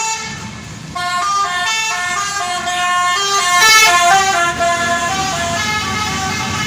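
Bus's musical basuri horn playing a quick tune of short stepping notes, several a second, starting about a second in.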